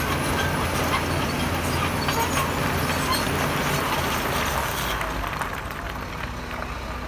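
Heavy diesel engine of earth-moving equipment running steadily, with short knocks and clatter over it. The higher noise fades and the sound drops a little about five seconds in.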